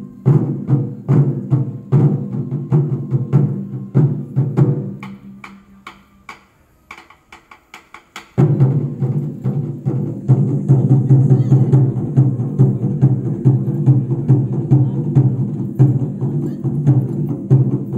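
Japanese taiko drums struck by several drummers in a fast, loud rhythm. About five seconds in the playing dies down to a hush with a few light taps, then just after eight seconds all the drums come back in together, loud and dense.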